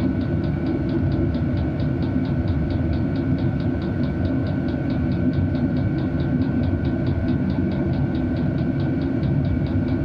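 Chinese diesel air heater running steadily: a low combustion and blower rumble with a constant high whine, and its fuel dosing pump ticking fast and evenly, about five times a second.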